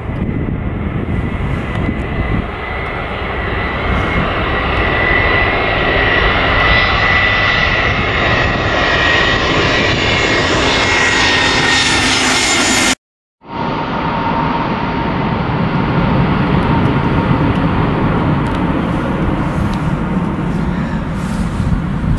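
Airbus A320-211's CFM56 jet engines on final approach, a steady high whine over a rumble that grows sharper as the aircraft comes in low overhead. After a brief dropout at a cut about 13 seconds in, another airliner's jet engines run on the runway with a lower steady whine.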